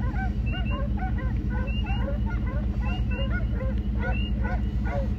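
A pack of hounds in the distance, bawling and baying on a running coyote's trail. Many voices overlap in a continuous chorus of short calls over the low hum of an idling truck.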